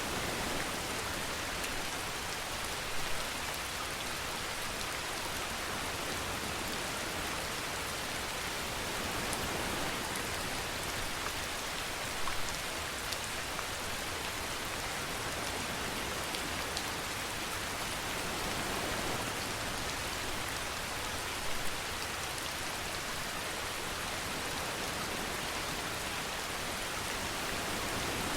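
Steady rainfall hissing evenly, with three brief louder patters spread through it.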